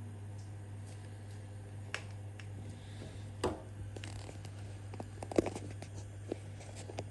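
Handling noise from a handheld camera: scattered clicks and short rustles over a steady low hum, the two loudest knocks about three and a half and five and a half seconds in.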